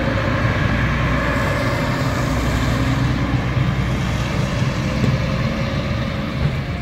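Steady road-traffic noise of a coach and a car driving by on a wet road, fading out near the end.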